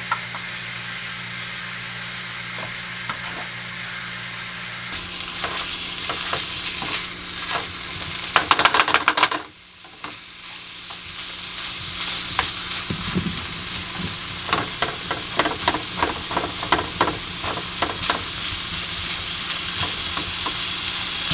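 Chicken pieces sizzling as they fry in butter in a non-stick frying pan, stirred and turned with tongs that clack against the pan. A burst of louder clattering comes about eight seconds in, and the frying sound drops out briefly near ten seconds before building back up.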